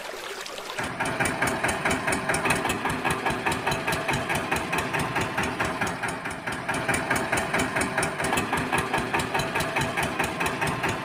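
Engine idling with a fast, even chugging beat, starting about a second in, most likely an engine sound laid over toy-vehicle footage.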